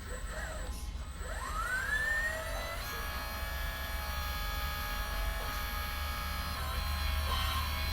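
Electric motor of a 1/8-scale RC excavator spinning up with a rising whine about a second in, then running under load with a steady high whine that dips briefly near the end, over a low hum.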